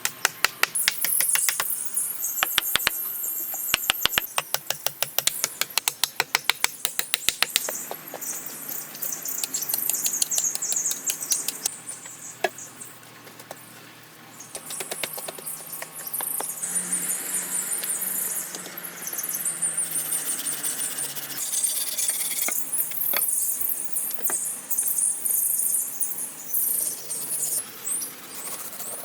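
Birds chirping over a quick run of sharp knocks, about three or four a second, in the first several seconds, followed by a stretch of scraping noise partway through.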